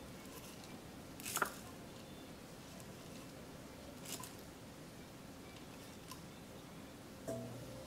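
A few faint, scattered scrapes and clicks of a plastic drinking straw scooping raw glutinous rice from a bowl and pressing it into the holes of a lotus root, with one louder click about a second and a half in.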